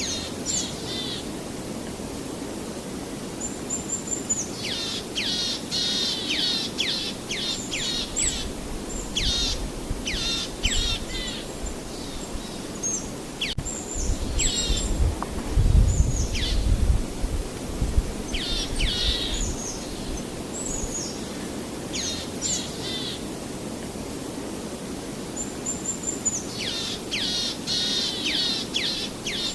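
Birds calling in bouts of quick, high whistled notes, each dropping sharply in pitch, over a steady low background noise. A low rumble swells briefly around the middle.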